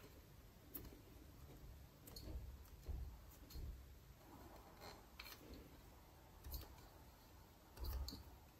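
Faint handling noise of fingers pressing and smoothing vinyl protector film onto a bicycle crank arm: scattered soft clicks and light rubbing, with a couple of slightly louder low thuds about three seconds in and near the end.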